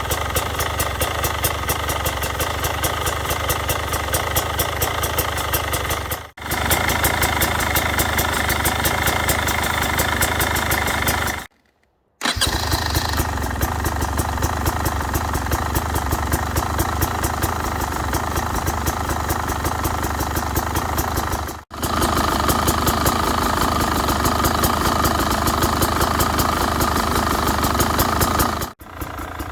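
Brand-new Beta 300RR's two-stroke single-cylinder engine idling steadily at zero hours, in several takes broken by short gaps, one a brief silence about twelve seconds in. The owner is checking whether this engine noise is normal.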